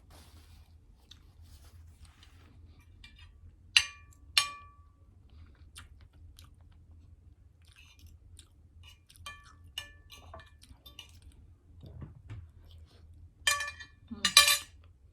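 Close-up chewing of food during a mukbang, with soft mouth ticks. Cutlery clinks against a dish twice, sharply, about four seconds in, and a louder cluster of clinks comes near the end.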